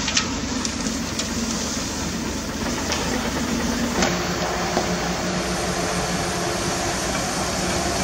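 Small electric gear motors of miniature model vehicles running: a steady mechanical whirr and rattle with a faint hum, and a short tick about four seconds in.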